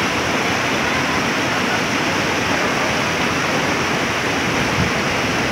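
Fast-flowing muddy floodwater rushing over a road: a loud, steady, even rushing noise.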